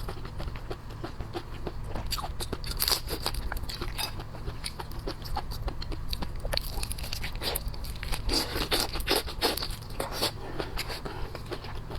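Close-miked eating sounds of seafood: biting, crunching and chewing, a dense run of irregular sharp clicks and crackles, busiest about three seconds in and again later on.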